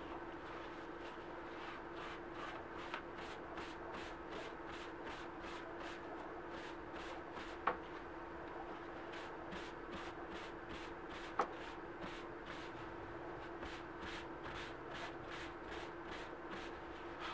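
Folded paper towel rubbing over a dyed leather key chain in quick back-and-forth strokes, about three a second, wiping off excess dye. A steady background hum runs under it, and two sharp clicks sound about halfway through and about two thirds through.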